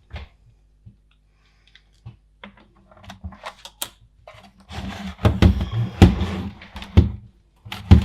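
Small plastic parts being handled and fitted: a few light clicks, then from about five seconds in a run of clattering knocks and sharp clicks.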